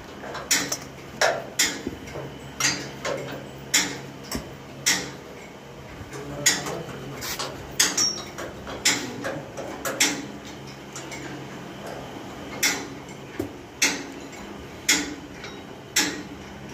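A metal tool knocking and scraping against a rusty steel harvester block as it is cleaned: irregular sharp metallic clinks, about one or two a second.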